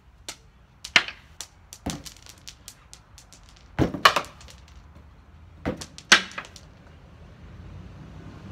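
Thrown rocks landing and clattering on a concrete patio: a string of sharp clacks, with louder clusters of bounces about one, four and six seconds in. The balloons do not pop.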